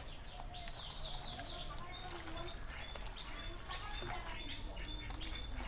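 Birds chirping in short, high notes repeated every half second or so, over the wet squelching of a hand kneading spiced meat and onions in a steel bowl.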